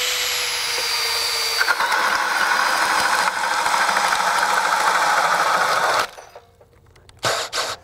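Makita 40V max XGT GPH01 brushless hammer drill-driver boring a large self-feed bit into 2x lumber. The motor spins with a high whine, then the noise of chips being cut grows as the bit bites in, about two seconds in. The drill stops suddenly about six seconds in, at the end of the hole, where the user says it usually cuts out.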